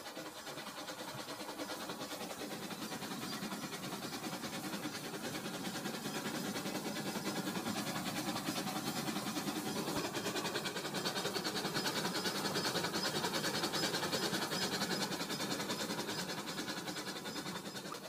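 Toy train running along plastic track: a steady motor whir with a fast, fine rattle, growing louder as it comes closer and easing off slightly near the end.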